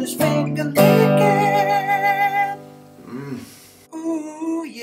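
Closing theme jingle: strummed acoustic guitar with a sung vocal, dipping briefly about three seconds in before the voice comes back.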